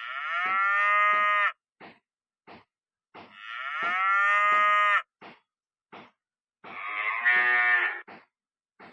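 Cattle mooing: three long calls, the first two rising at the start and then held steady, the third rougher.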